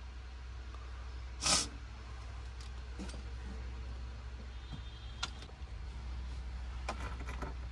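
A touchscreen car stereo head unit being pushed into its dashboard opening: one loud scraping rasp, then scattered sharp plastic clicks and knocks, over a steady low hum.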